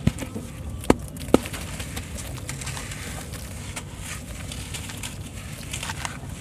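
A wet sand-cement lump crushed by hand in a basin of water: three sharp cracks in the first second and a half, then a run of small crunches and crackles as it crumbles into grit.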